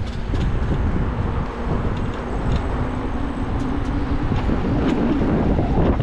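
A 72-volt hub-motor electric enduro bike being ridden, heard as a steady rushing noise of wind on the microphone and tyre rumble. A faint steady hum comes through the middle, and there are a few light clicks.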